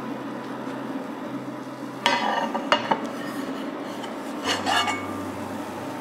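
A ceramic plate is set over a steel frying pan with a scrape and a couple of clinks about two seconds in. The pan and plate are then lifted and turned over with another scrape about four and a half seconds in. Under it all is a steady sizzle of the pancake frying in butter.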